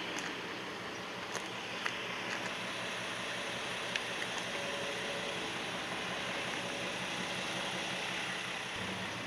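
Amagi Railway diesel railcar running steadily, heard from inside at the front of the car: a constant engine drone and running noise, with a few faint ticks.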